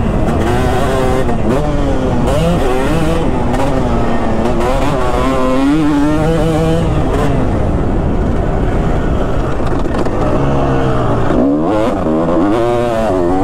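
2005 Kawasaki KX250's single-cylinder two-stroke engine, ridden hard on a motocross track, revving up and down over and over as the throttle is opened and closed.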